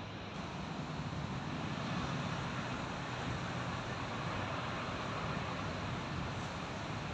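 Steady, even wash of surf breaking on a beach, a little louder from about a second in.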